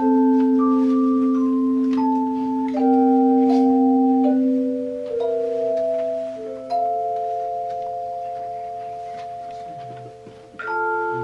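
Tone chimes played by an ensemble: struck chords of handheld tuned chimes ring on steadily, changing every second or two. A long final chord slowly fades over several seconds, and another chord is struck near the end.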